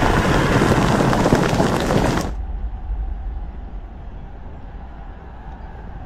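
A massed army roaring war cries, a dense, loud din that cuts off abruptly about two seconds in, leaving a quieter, steady low rumble.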